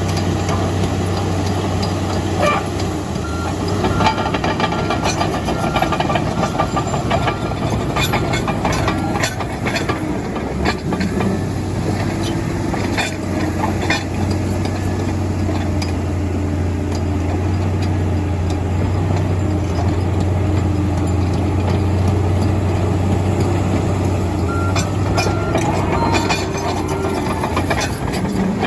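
Komatsu D85EX crawler dozer's diesel engine running steadily under work, with scattered metallic clanks and knocks, most of them in the first half and again near the end.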